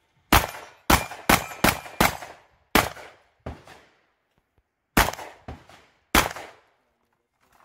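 Rapid handgun shots, about ten: five in quick succession in the first two seconds, then spaced singles with a pause around four seconds in, the last a little past six seconds.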